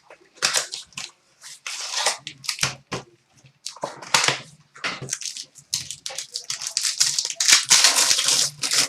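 Sealed trading card packaging being ripped open: plastic wrap and foil pack wrappers crinkling and tearing in many short, irregular rustles.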